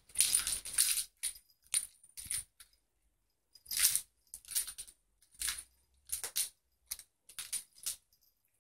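A small metal bell jingling in a dozen or so short, irregular bursts as a cat bats and pounces on its toy mouse.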